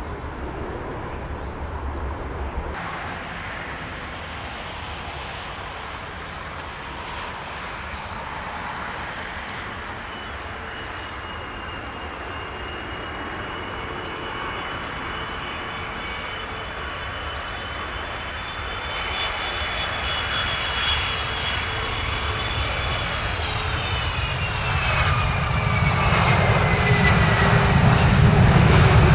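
Jet airliner's turbofan engines approaching and growing louder, with a high engine whine that holds steady and then falls in pitch near the end. A deep rumble builds as the aircraft comes close.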